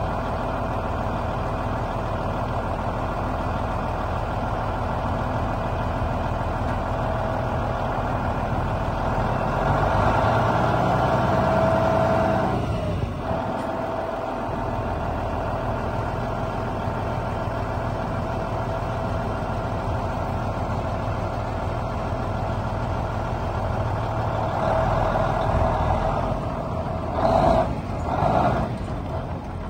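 Tandem-axle grain truck's diesel engine idling steadily, somewhat louder for a couple of seconds about ten seconds in. Two short noisy bursts near the end.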